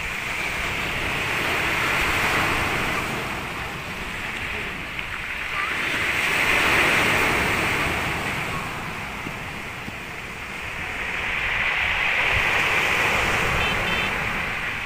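Sea surf breaking and washing up a pebbly beach, swelling and fading about three times as successive waves come in.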